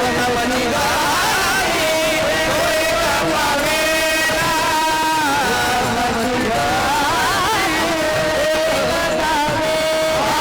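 Marathi Varkari kirtan singing: a high voice holds long, ornamented notes with wavering bends over continuous musical accompaniment.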